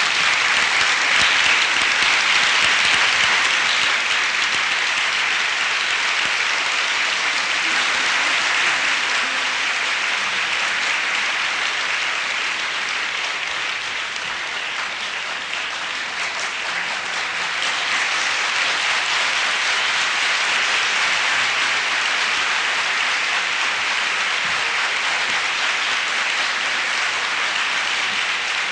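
Large audience applauding, a long, steady round of clapping that eases a little midway and swells again.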